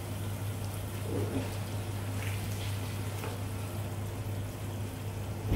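Marinated chicken pieces frying gently in shallow oil on a low flame, with a soft bubbling, while a slotted turner turns them over, giving a few light scrapes about a second, two seconds and three seconds in. A steady low hum sits underneath.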